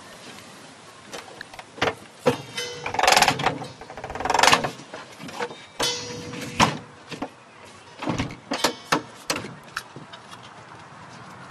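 Rear bench seat of a VW California camper van being folded down into a bed: a string of sharp clicks and clunks from its release lever and latches, with two longer sliding sounds about three and four and a half seconds in.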